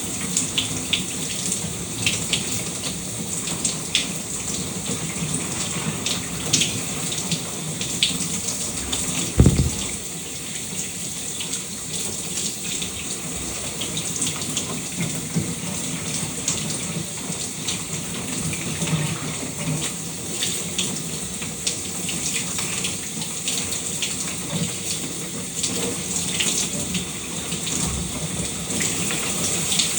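Shower water running steadily and splashing, with many small patters of drops. One dull thump stands out about a third of the way through.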